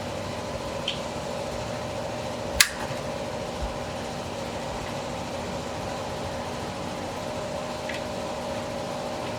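Steady machine hum, like a fan or air conditioner, with a few light clicks and one sharp click about two and a half seconds in.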